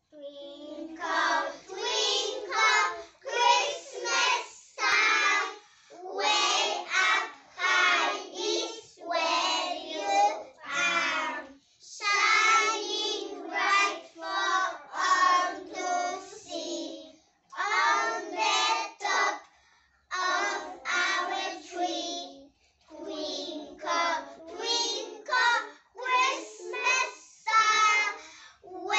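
A group of young children singing a Christmas song together without accompaniment, in short phrases with brief pauses between them.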